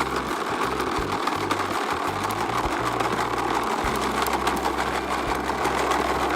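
Toy push lawn mower giving a steady, fast mechanical rattle as it is pushed along, over background music with a low bass line.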